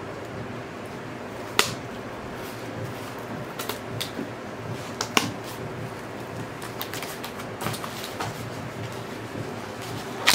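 A cardboard vinyl record mailer being handled and opened: scattered taps, scrapes and clicks of stiff cardboard over a steady fan-like background hum, with a sharper crack at the very end as the mailer is pulled open.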